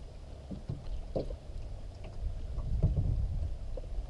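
Wind rumbling on the microphone in an open boat, with a few faint knocks and small splashes from a hooked white bass thrashing at the surface beside the boat.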